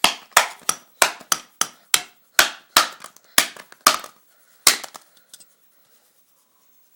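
A Pantech cell phone being struck hard again and again: over a dozen sharp knocks at about three a second, stopping about five seconds in.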